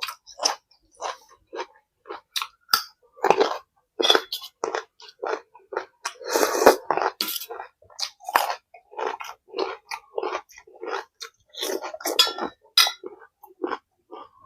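Close-up eating sounds: a person chewing with wet smacks and crunches, many short bites in quick succession, with a longer, denser run of noise about six seconds in.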